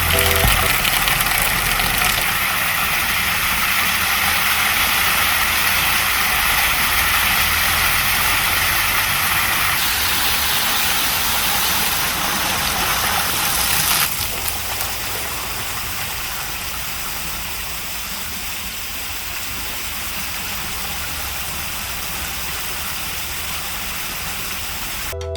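Steady rushing noise with no rhythm or tone, like outdoor ambience, stepping down in level about fourteen seconds in.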